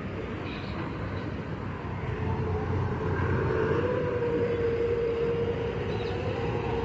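A KSRTC bus's diesel engine rumbling as the bus moves slowly past close by. It grows louder about two seconds in, and a steady whine joins the rumble.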